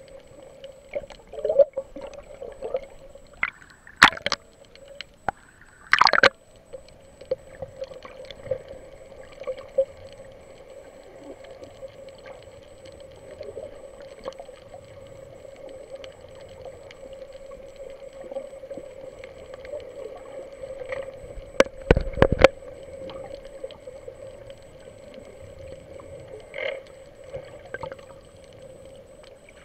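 Muffled underwater sound picked up by a submerged camera: a steady hum with a few sharp knocks, the loudest a close pair about three-quarters of the way through.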